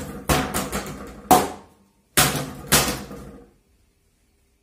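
A foam practice sword striking a plastic water bottle and the wooden tabletop, and the bottle bouncing on the table: a run of sharp knocks in two bunches, each ringing briefly, that stops about three and a half seconds in.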